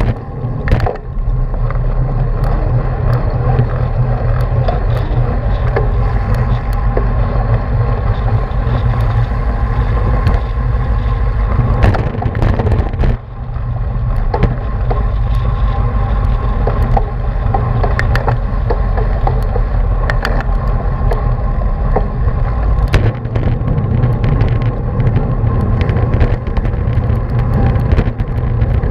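Wind rumble and tyre-on-asphalt road noise picked up by a bicycle-mounted camera riding in a racing pack, with scattered sharp clicks and knocks from road bumps and the bike. The noise dips briefly about halfway through.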